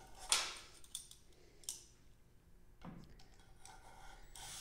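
Sharp metallic clicks and clatter of a spring-loaded cylinder hone's stones and arms as it is pulled out of and worked back into a cylinder bore with the drill stopped. The loudest click comes about a third of a second in, with three more over the next few seconds. The cordless drill spins up again near the end.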